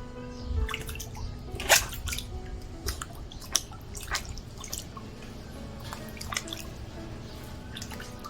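A Shetland sheepdog puppy's paws splashing and dripping in shallow pool water in a few short, irregular splashes, the loudest about two seconds in, over background music.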